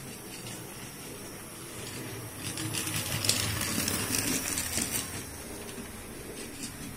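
A model train running past on the layout's track, its wheels clicking and rattling over the rail joints, loudest for a couple of seconds in the middle before fading back to a low steady running noise.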